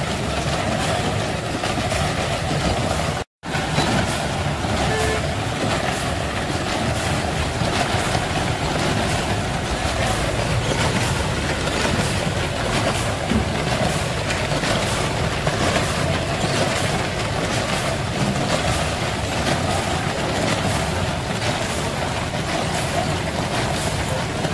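Steady running of a motor-driven rotating ice drum on a roller ice-cream cart, with a light regular ticking. The sound drops out for an instant about three seconds in.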